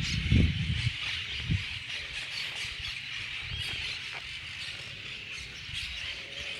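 A large flock of parrots calling all at once: a dense, continuous chorus of overlapping squawks and chatter. There are a few low bumps in the first second.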